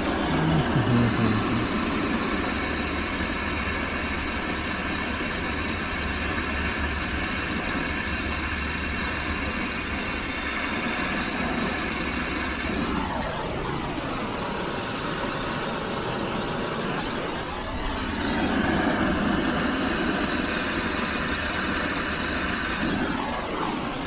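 Brazing torch flame running steadily with a hissing roar while copper refrigerant joints on a heat pump reversing valve are heated to unbraze them. The sound changes for a few seconds past the middle, as the flame is moved.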